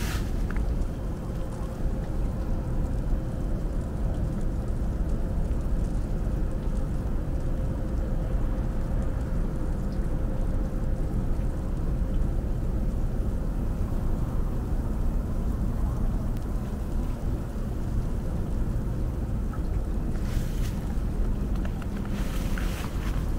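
Snowstorm wind gusting against the microphone, a steady low rumble with a faint hum in the first half. A few short hissing swishes come near the end.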